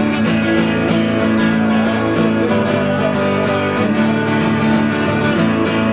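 Instrumental break of a country song: strummed acoustic guitar keeping a steady rhythm, no singing.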